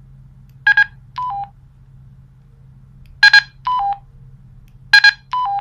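Baofeng UV-5R handheld radio sending its programmed ANI / PTT-ID code as a quick burst of DTMF tones when the transmit button is keyed, each burst followed by a short two-note falling beep. This happens three times, about a second in, a little past three seconds, and near the end.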